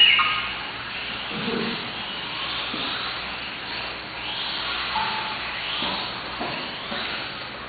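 Small 1/18-scale electric RC cars racing on a carpet track: a steady whirring hiss of motors and tyres, with motor whines rising in pitch several times as cars accelerate.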